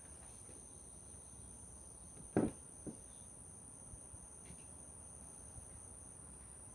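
A hard plastic football helmet shell set down on a wooden table: one solid knock about two and a half seconds in, then a lighter second knock. Steady high-pitched insect drone behind it.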